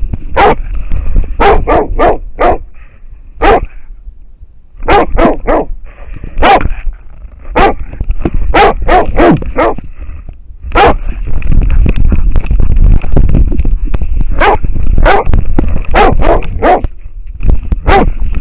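American foxhound barking hard and close to the microphone, short barks in irregular runs of two to five with brief pauses, baying at a wild boar. Under the barks, a heavy low rumble from the harness-mounted camera as the dog moves through snow.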